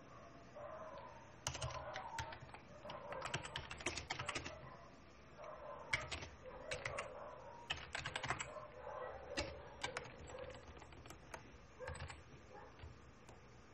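Typing on a computer keyboard: quick runs of keystrokes with short pauses between, thinning out near the end.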